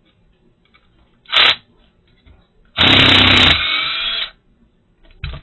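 Power drill run in three bursts: a brief blip, then a run of about a second and a half that is the longest and loudest, then another brief blip near the end.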